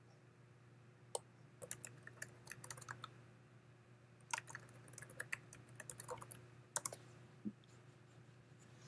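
Computer keyboard being typed on in several quick runs of keystrokes with short pauses between them, over a faint steady low hum.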